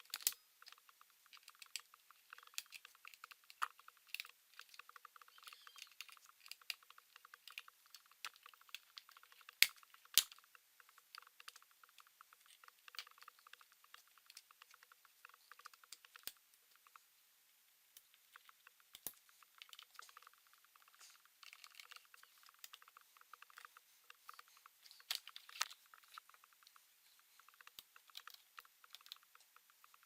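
Irregular clicking and tapping on a laptop's plastic case and keys, many light clicks with a few sharper knocks, two close together about ten seconds in.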